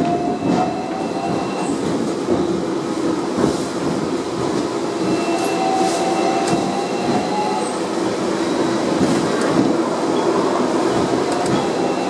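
Hong Kong double-decker electric tram running along its rails, a steady rolling rumble and rattle with thin wheel-squeal and whine tones that come and go.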